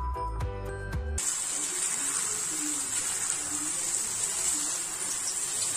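Background music for about the first second, then chickpeas in masala sizzling steadily in a frying pan. The sizzle means the water has cooked off and the masala is now frying.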